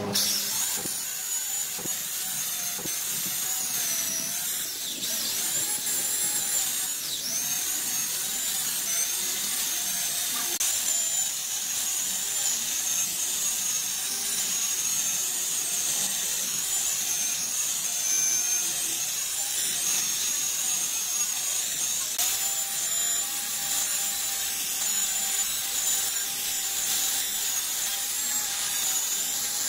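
Corded electric chainsaw ripping lengthwise through a log, cutting continuously. Its high motor whine wavers slightly in pitch as the chain bites into the wood.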